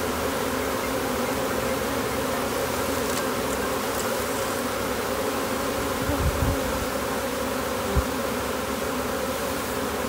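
A freshly hived swarm of honey bees buzzing in a steady, continuous hum around an open hive box. A soft low thump about six seconds in and a short knock near eight seconds come as the wooden hive lid is laid on.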